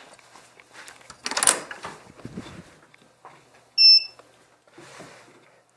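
Wiegand proximity card reader at a door giving one short, clear beep about four seconds in, acknowledging a key card held up to it. Before it, a brief scuffing handling noise about a second in.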